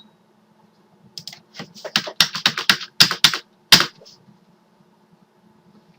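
Typing on a computer keyboard: a quick run of about a dozen keystrokes over some three seconds.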